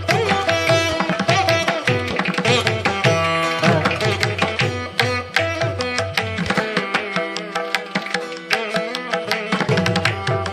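Instrumental background music with plucked string melody notes over a steady hand-drum beat.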